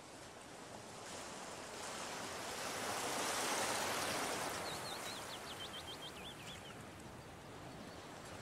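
Water washing in a slow swell, like a wave rolling in, peaking about three and a half seconds in and then ebbing away. Near the middle, a bird calls a quick run of high whistled notes.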